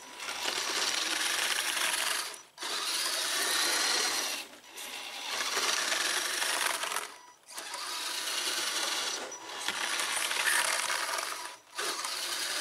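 Electric motor and geartrain of an Axial SCX10 RC crawler whirring under throttle in runs of about two seconds, cutting out briefly five times as the throttle is let off between passes.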